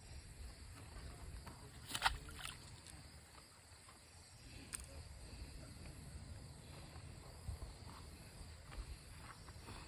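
Quiet outdoor background with a low rumble and a few sharp clicks or knocks, the loudest about two seconds in.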